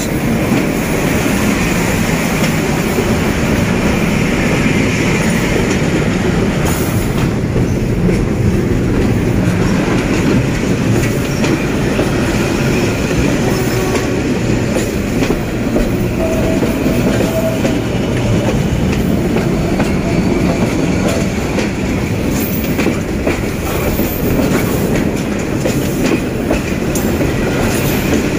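Freight train passing at very close range: the end of a diesel locomotive goes by first, then a line of container wagons. Their steel wheels clack and rumble over the rail joints in a loud, steady din.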